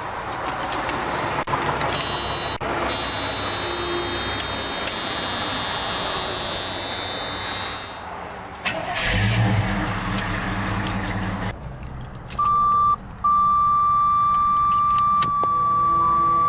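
Chevy Blazer door-open warning chime sounding as a steady high tone from about twelve seconds in, with a short break just after it starts. Before it there is a steady hiss of outdoor noise and a low thump about nine seconds in.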